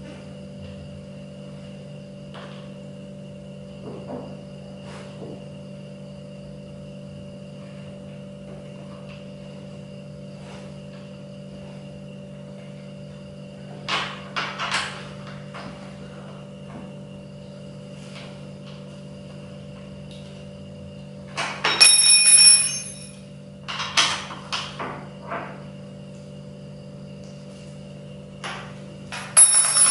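Parts of an office chair being handled and fitted by hand: a few light clicks, then short bursts of clattering and rustling about halfway through and several more in the last third. A steady low hum runs underneath.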